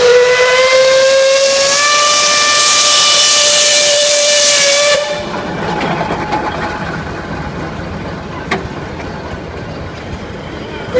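Climax geared steam locomotive's whistle blowing one long blast of about five seconds, its pitch rising slightly. The locomotive and its carriages then roll close past, with one sharp click, and a second whistle blast starts at the very end.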